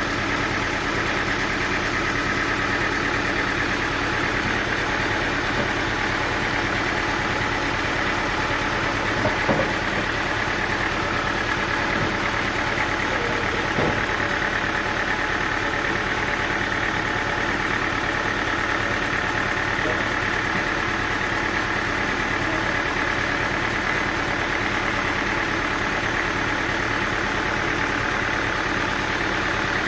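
Engine running steadily at an even speed, with a couple of brief knocks about nine and a half and fourteen seconds in.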